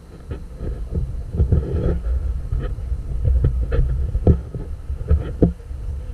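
Low, steady rumble of a passenger boat under way, with irregular gusts of wind buffeting the microphone.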